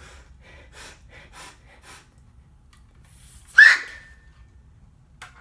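A sharp gasping intake of breath with a shouted curse about three and a half seconds in, as a sneeze starts to come on and is held back. Before it, a few faint clicks and rattles from handling a plastic toy cap gun.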